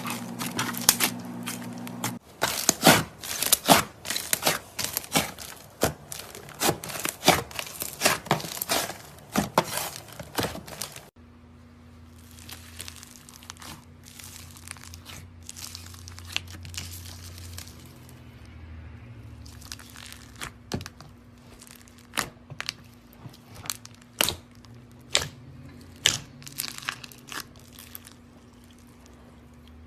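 Slime being squeezed and stretched by hand, making many quick sharp clicks and pops. The clicks come densely at first, then thin out after an abrupt change in the sound about eleven seconds in.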